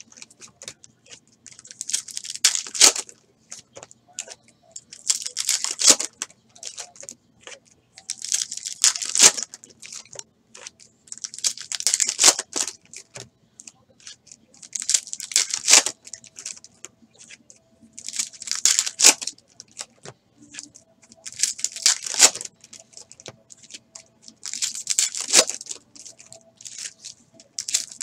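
Foil trading-card pack wrappers (2017-18 Panini Prizm retail packs) being torn open one after another, with a crinkly tearing rustle about every three seconds.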